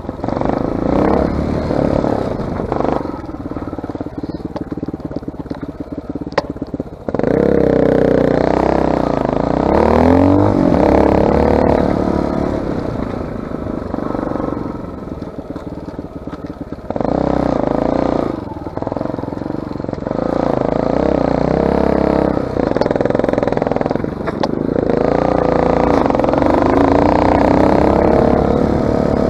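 Motorcycle engine riding a trail. It runs lower for the first several seconds, then the throttle is opened again and again, the pitch rising and falling in repeated surges with brief easings between.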